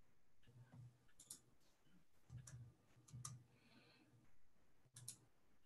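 Near silence: room tone with a few faint scattered clicks and soft low thumps.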